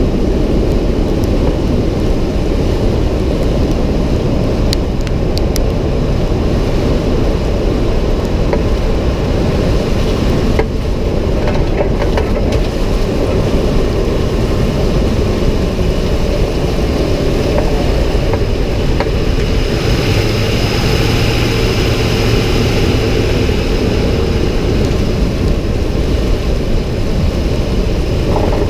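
2006 Ford F-150 running, with steady engine and road noise. About two-thirds of the way through, a steady low hum and a higher hiss come in for a few seconds.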